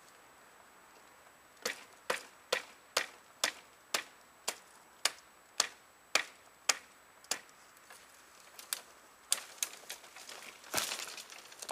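A blade chopping into a hazel stem at the base of a coppice stool: about a dozen sharp strikes, roughly two a second, then a few lighter taps. Footsteps rustling through dry leaf litter near the end.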